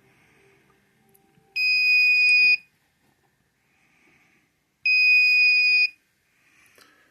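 Breadboard buzzer of a Raspberry Pi burglar alarm giving two high, steady beeps, each about a second long and about three seconds apart: the alarm has been triggered by its motion sensor.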